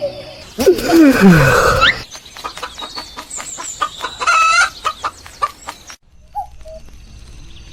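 Chickens calling: a loud call with falling pitch near the start, then a run of short clucks.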